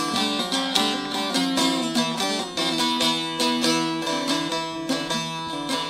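Bağlama (long-necked Turkish saz) played solo: a quick run of plucked notes over a steady drone string, the instrumental interlude between sung verses of a mersiye.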